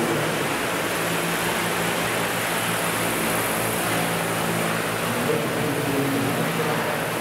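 Large radio-controlled Vario CH-47 Chinook scale model helicopter flying, its tandem rotors giving a steady rotor noise with a low hum underneath.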